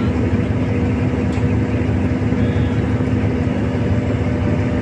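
A heavy engine running steadily: a constant low drone with a steady hum that neither rises nor falls.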